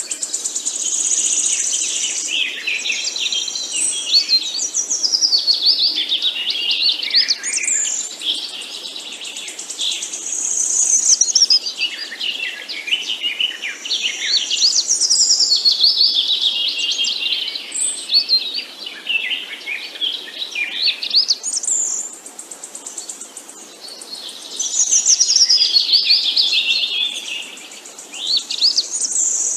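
Songbirds chirping and singing, a dense chorus of quick, overlapping rising and falling phrases with no pause.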